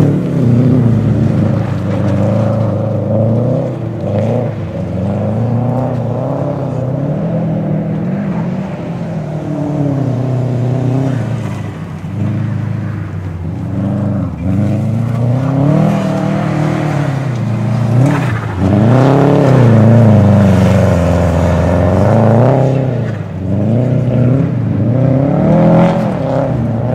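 Car engine driven hard, its revs climbing and falling again and again, with a few sudden sharp drops in pitch.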